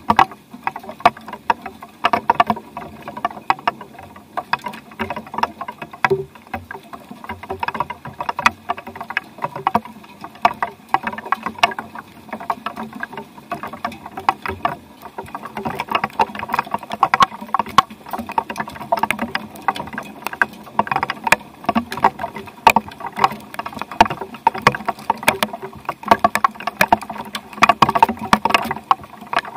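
Rain dripping and pattering: a dense, irregular run of sharp drop impacts.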